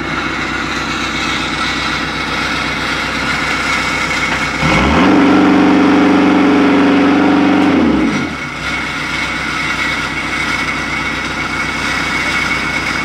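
Engine of a tracked mobile-home mover running steadily as it pulls a mobile home, revving up about four and a half seconds in, holding high for about three seconds, then dropping back to its working speed.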